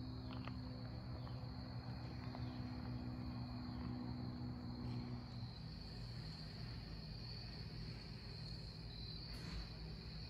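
Evening insect chorus: a steady high-pitched trilling that holds unbroken, over a low steady hum, part of which drops away about halfway through.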